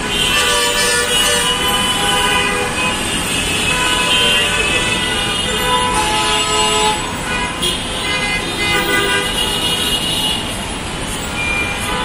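Bus and car horns honking over one another, one after another with hardly a pause, over the steady noise of jammed road traffic.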